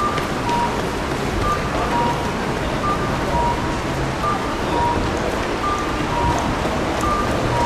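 Japanese audible pedestrian crossing signal repeating a two-note falling cuckoo chime: a short high note, then a lower one, about every second and a half, over steady noisy street background.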